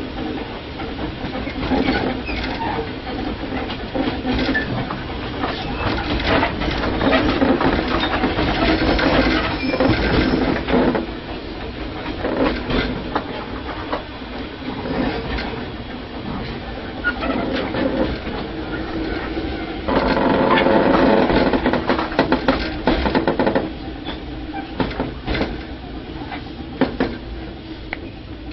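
Running noise heard from inside a Tobu 5050 series electric train car, whose old nose-suspended traction motors and gears drive the axles, mixed with the clack and rattle of wheels over rail joints. About twenty seconds in, a pitched hum swells for about three seconds, and the noise is quieter near the end.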